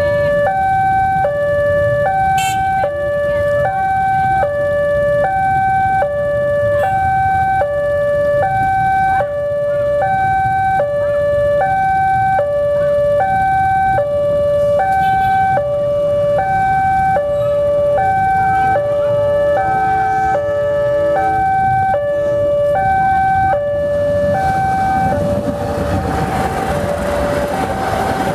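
Railway level-crossing warning alarm sounding an electronic two-tone chime, high and low alternating about once a second, the signal that a train is approaching. About four seconds before the end, the rumble of the passenger train reaching the crossing swells under it.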